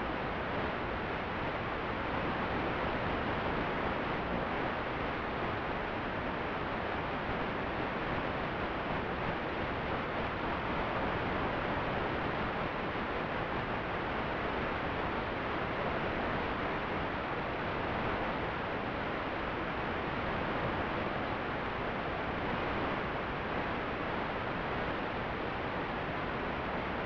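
Steady, even hiss of static with no motor tone in it, the noise of an analog 5.8 GHz FPV video receiver's recorded audio channel.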